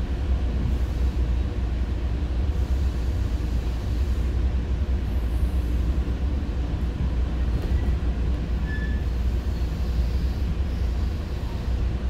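Commuter train running, heard from inside the passenger car: a steady low rumble of the wheels on the track, with a brief faint high whine about nine seconds in.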